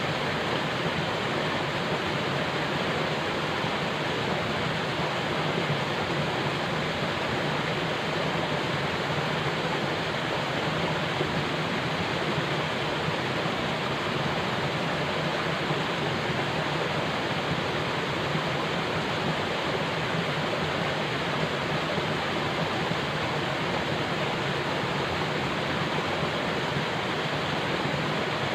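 Steady, unbroken rush of falling water, as of a waterfall or cascade, without change or break.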